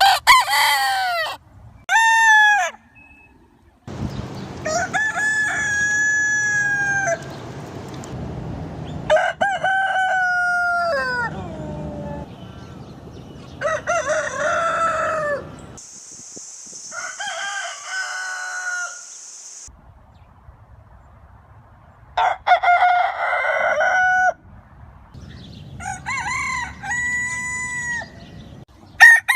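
Roosters crowing, one crow after another, about nine in all, each a long cock-a-doodle-doo that holds its pitch and falls away at the end. The background changes abruptly between crows, and a steady high hiss runs under one crow in the middle.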